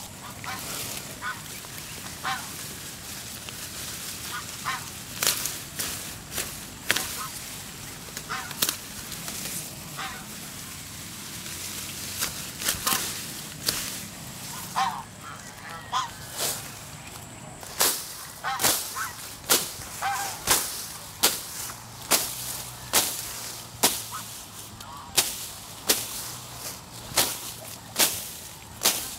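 A curved blade cutting tall grass in repeated sharp strokes, sparse at first, then about one a second through the second half. Short calls of farm fowl sound between the strokes.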